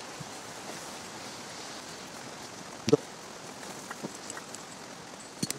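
Steady hiss of outdoor background noise, with one sharp knock about three seconds in and a few light clicks near the end.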